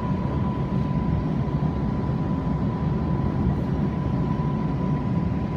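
Cabin noise inside a Beijing medium-low-speed maglev train running along the line: a steady low rumble with a thin, steady high tone running through it.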